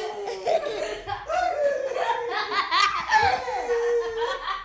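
Children laughing hard, in repeated high-pitched peals of laughter.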